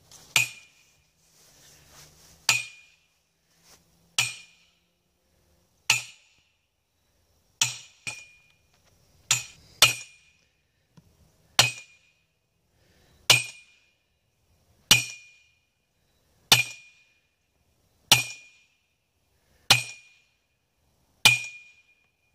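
Sledgehammer blows on a steel driving cap atop a steel greenhouse ground post, driving the post into the ground. A steady run of about fourteen ringing metallic clangs, one every second and a half to two seconds.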